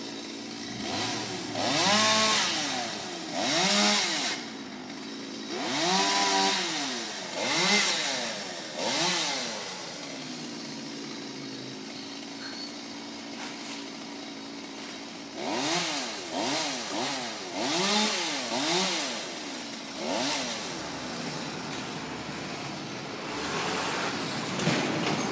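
Two-stroke chainsaw revved up and back down again and again in short bursts, settling to a steady idle between the runs of revs.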